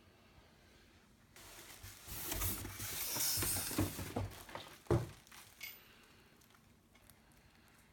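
Chair packaging being handled: a few seconds of rustling and scraping of cardboard and wrapping with some knocks, then one sharp thump about five seconds in and a few small clicks.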